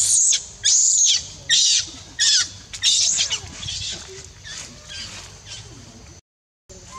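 Baby macaque screaming in distress while an older juvenile bites and pins it: about five shrill, high-pitched shrieks in quick succession, then weaker cries after about three and a half seconds. The sound drops out briefly near the end.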